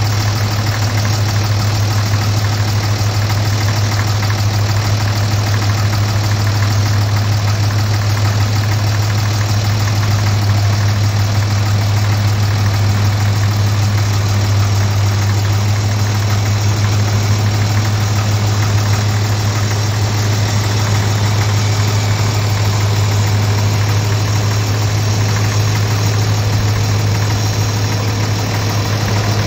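Case Comfort King tractor's engine idling steadily, an even, constant hum.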